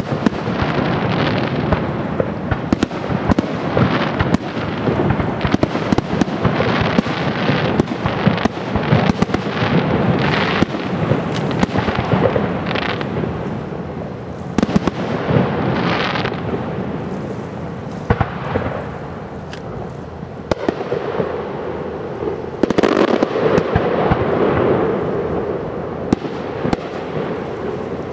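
Aerial firework shells bursting in a continuous barrage, many bangs in quick succession over a rumbling, crackling background.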